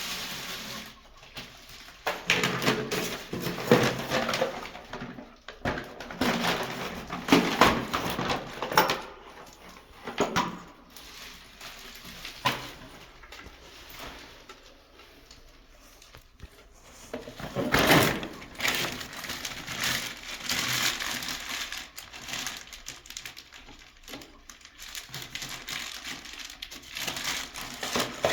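Irregular bursts of scraping, crinkling and knocking as plumbing parts are handled and fitted, with quieter pauses between.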